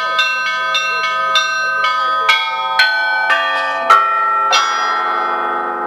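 Set of Russian Orthodox church bells chimed by hand, the clappers pulled by ropes: a quick run of small-bell strikes about four a second, then slower, deeper strokes about two a second. The loudest stroke comes about four seconds in, and the bells are left ringing near the end.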